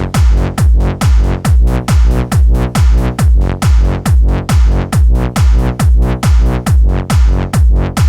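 Electronic dance music: a heavy kick drum on every beat, about two a second, each kick sweeping down in pitch, under a sustained synth chord.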